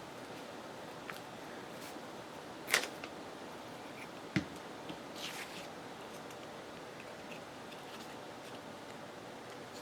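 Paper and small craft pieces being handled on a work table: a sharp tap about three seconds in, a softer click a couple of seconds later and a brief paper rustle, over a steady low hiss.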